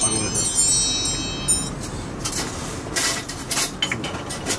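A metal wind chime ringing with several high tones at once, which all stop about a second and a half in. Afterwards come a few light clinks of a ladle and bowls.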